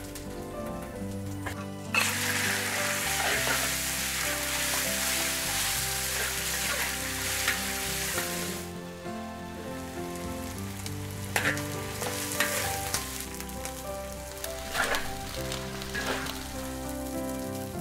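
Minced beef and sour bamboo shoots stir-frying in a hot wok. Loud sizzling starts suddenly about two seconds in and eases off after about nine seconds, followed by a few sharp scrapes of the spatula on the wok. Soft background music plays throughout.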